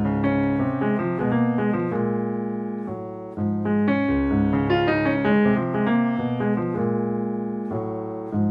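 Background music: piano playing chords and a melody, with new chords struck about a second in, near the middle and near the end.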